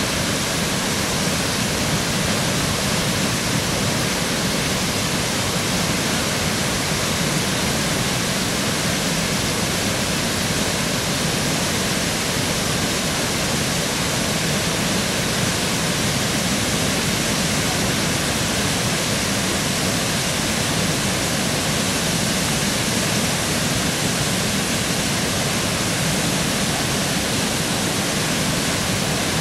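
A flood-swollen river pouring over a low dam and churning in the white water below: a steady rushing of water with no let-up.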